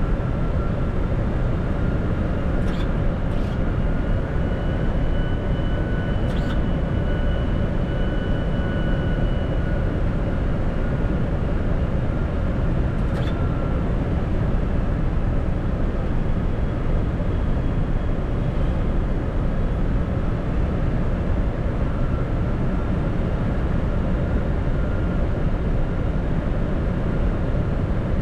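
Steady rush of airflow and engine noise inside the flight deck of a Boeing 747-400 in flight, with a faint steady high whine and a few light clicks.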